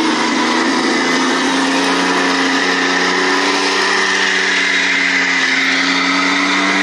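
Beier USM-HL sound module in a Torro King Tiger RC tank playing its tank-engine sound through the model's speaker, running steadily. A low drone of several steady tones that shift slightly in pitch, over a hiss.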